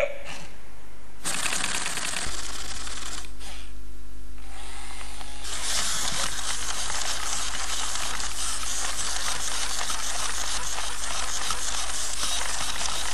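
i-Cybie robot dog walking: its leg gear motors give a dense, fast clicking whirr. It starts about a second in, drops away briefly around three to four seconds in, then runs on steadily.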